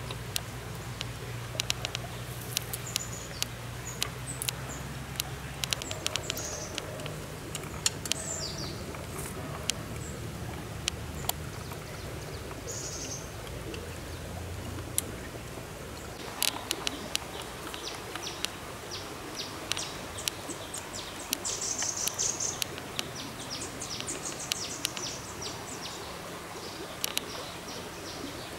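Birds chirping over a steady background hiss from a shallow stream, with scattered sharp clicks. A low hum runs under it for the first six seconds or so.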